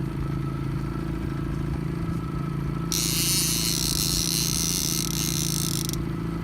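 Fishing boat's engine running steadily at low trolling speed. About three seconds in, a hiss comes in abruptly, lasts about three seconds and cuts off.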